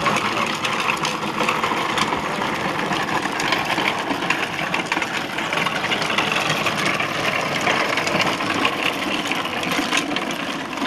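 Hard plastic wheels of a Little Tikes Cozy Coupe ride-on toy car rattling steadily as it rolls over pavement.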